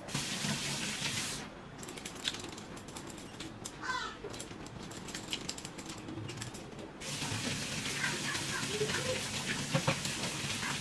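Kitchen mixer tap running into a stainless steel sink while hands wash something under it: the water runs for about a second and a half, then a quieter stretch of small clicks and clinks, and about seven seconds in the tap runs and splashes again.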